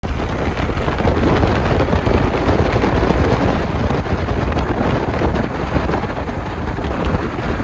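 Heavy wind buffeting the microphone on an open Willys CJ3A Jeep with its windshield folded down, travelling fast downhill, with the Jeep's engine and tyres running underneath as a steady low rumble.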